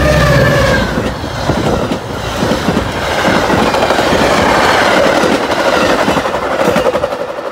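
A Metra F40PH diesel locomotive passes close by, its engine hum and pitched tones falling away in the first second as it goes past. Stainless-steel bilevel gallery passenger cars follow, rushing by with a quick clickety-clack of wheels over the rail joints.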